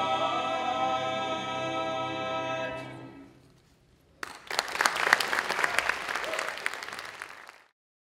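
A stage cast singing together holds a final chord, which fades out by about three seconds in. An audience then breaks into applause about four seconds in, and the applause cuts off abruptly near the end.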